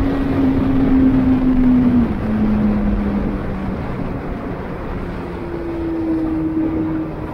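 Vehicle engine running at speed over steady wind and road noise; its steady note drops in pitch about two seconds in and fades, and a higher engine note comes in near the end.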